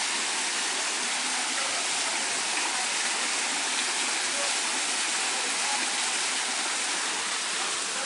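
Steady rush and splash of water pouring from inlet pipes into concrete trout-farm raceways.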